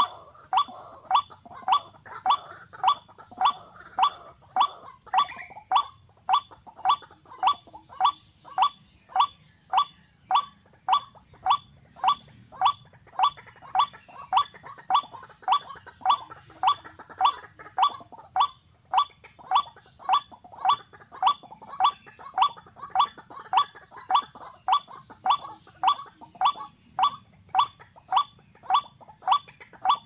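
White-breasted waterhen calling: one short, hooked note repeated very steadily, about one and a half times a second, without a break. A faint steady high hiss lies underneath.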